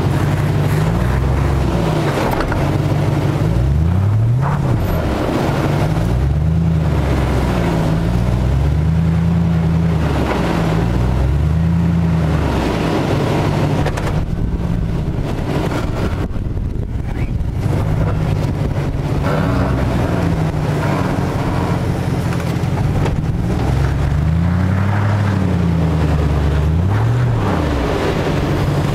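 Jeep Grand Cherokee WJ's engine revving up and down again and again under load as the 4x4 crawls over a steep dirt mound.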